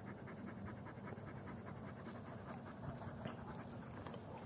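A large dog panting quickly and evenly, faint: out of breath after a run.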